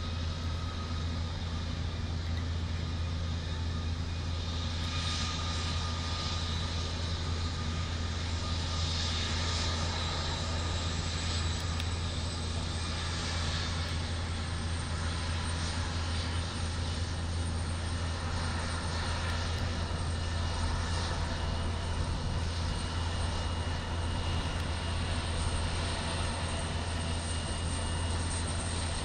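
Embraer 170 regional jet's twin turbofans running at taxi power: a steady low rumble under a high, thin whine. The whine edges up in pitch several seconds in, then holds level.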